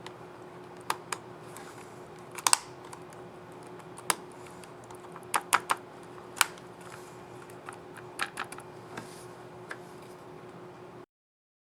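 Keys on a Lenovo ThinkPad E15 laptop keyboard clicking as they are pressed: about a dozen scattered clicks at irregular intervals, some in quick pairs or threes, over a steady faint hum. The sound cuts off suddenly near the end.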